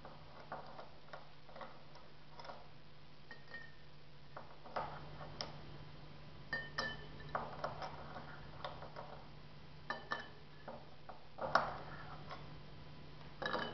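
Ice cubes being spooned out of a glass bowl and dropped into a tall drinking glass. They clink against the spoon, the bowl and the glass in scattered clicks and short ringing chinks, the loudest near the end.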